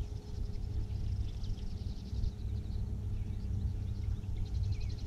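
Small birds trilling and chattering in rapid runs of high notes, over a low, uneven rumble of wind on the microphone and a faint steady hum.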